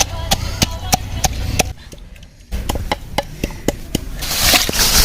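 Quick, even chopping strokes, about three a second, stopping briefly partway through and then going on. A hiss builds up near the end.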